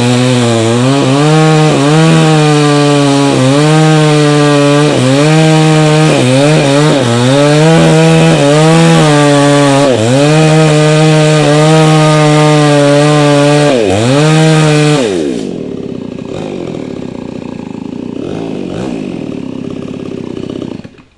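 Chainsaw cutting into a tree trunk at full throttle, its engine note dipping and recovering again and again as the chain bites into the wood. About fifteen seconds in, the throttle is released and the saw idles, much quieter, until the sound cuts off near the end.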